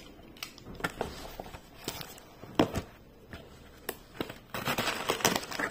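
A paper cutter (snap-off utility knife) cutting open a courier package: scattered clicks and crackly rustling of the packaging, with a denser stretch of rustling near the end.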